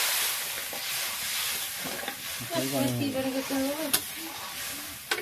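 Metal spoon stirring fish curry gravy in a steel kadai, the gravy sizzling. Two sharp clinks of spoon on pan, about four seconds in and near the end.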